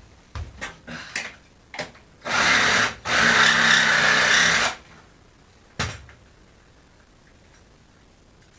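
Reciprocating saw with a metal-cutting blade, run in two short bursts, about a second and then about a second and a half, with a brief pause between. A few knocks and clatters come before the bursts, and one more sharp knock comes about six seconds in.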